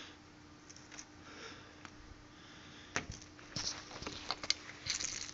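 Cat pawing and clawing at a toy on carpet close to the microphone: quiet, scattered soft scratches and clicks that come thicker in the second half, over a faint steady hum.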